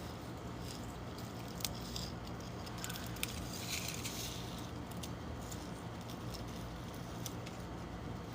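Faint small clicks and rustles over a steady low hum: a pet hedgehog licking and chewing at cardboard as it self-anoints, and shuffling about.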